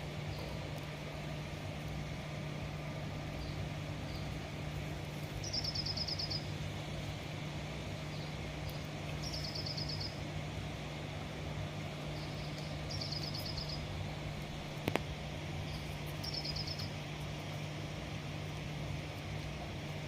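A bird calling repeatedly, four quick trills of rapid high notes a few seconds apart, with a few faint single chirps between. Under it runs a steady low hum with outdoor background noise, and one sharp click comes about fifteen seconds in.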